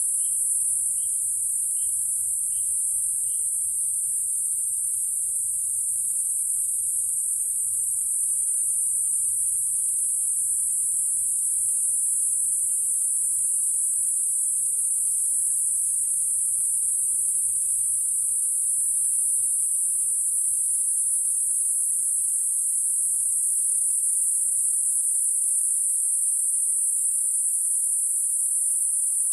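Continuous, loud, high-pitched insect buzzing from trees, steady without a break, typical of cicadas or crickets. Faint short chirps repeat about twice a second in the first few seconds.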